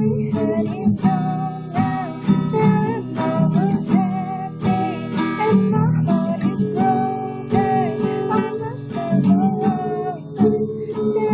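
Acoustic guitar strummed in steady chords, with a voice singing a melody over it.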